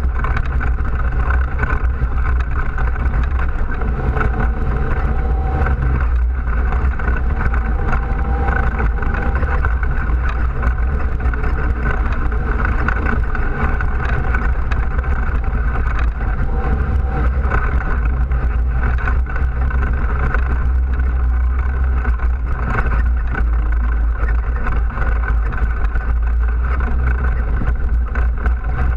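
ATV engine running steadily as the quad rides a bumpy dirt trail, a low drone with frequent small knocks and rattles throughout.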